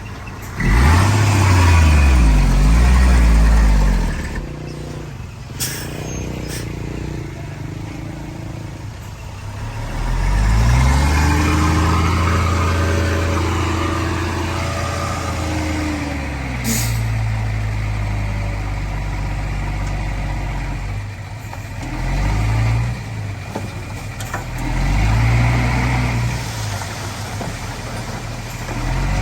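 Heavy diesel engines of earthmoving machinery, a bulldozer and dump trucks, revving up and easing off again several times as they work. A few short, sharp sounds break through, around six seconds in and again later.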